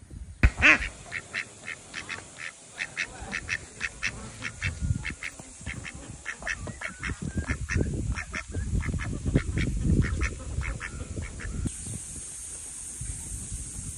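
Domestic ducks quacking: a long run of short calls, several a second, loudest about a second in, thinning out in the last few seconds.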